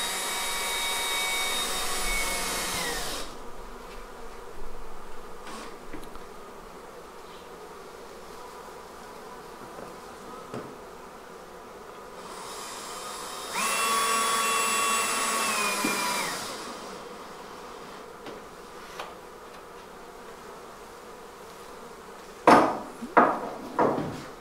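Cordless drill running in two steady bursts of about three seconds, at the start and about halfway through, each slowing as it stops, as when driving screws into a wooden hive frame. Between them the steady hum of honey bees in an observation hive, with a few sharp knocks near the end.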